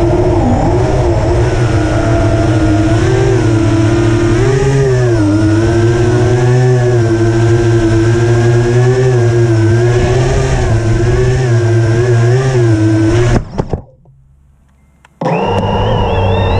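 FPV quadcopter's brushless motors and propellers whining, heard from the quad's own camera, their pitch wavering up and down with the throttle. Near the end the sound drops away to faint for about two seconds, then the motors spin back up with a rising whine.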